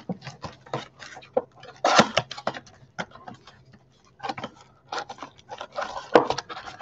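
Foil trading-card pack and cardboard box being handled and opened: crinkling and sharp crackles of the wrapper, with louder bursts about two seconds in and again near the end.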